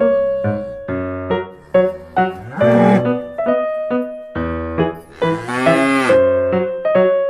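A cow mooing twice, once briefly about two and a half seconds in and once longer at about five seconds, over bouncy piano music.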